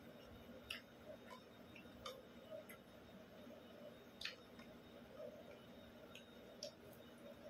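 Faint eating sounds over near silence: irregularly spaced small clicks and smacks of chewing and of bare fingers picking fried tilapia and rice off a plate.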